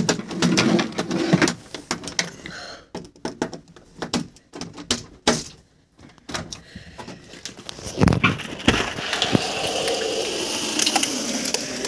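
Fittings of a PVC window sash being worked with a tool turned in the empty handle socket: a run of clicks and clunks from the locking hardware, a heavier knock about eight seconds in as the sash comes free, then a steady hiss.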